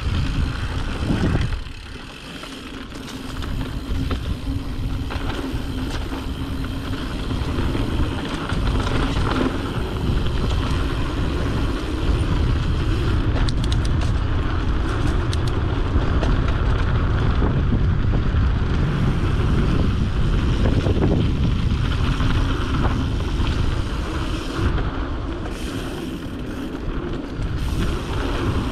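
Wind buffeting the microphone over a steady low rumble of movement along a dirt trail, with scattered knocks.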